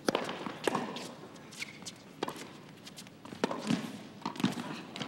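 Tennis point on a hard court: a serve and a quick exchange of sharp racquet-on-ball strikes and ball bounces, with players' footsteps between them.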